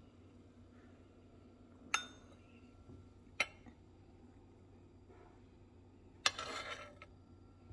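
Stainless steel spoon clinking against a ceramic bowl and a slow-cooker crock while fat is skimmed off broth: three sharp clinks about two seconds in, a second and a half later, and near the end, the last trailed by about half a second of noise.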